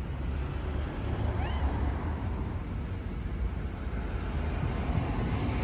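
Steady low rumble of background noise, with a faint short rising chirp about one and a half seconds in.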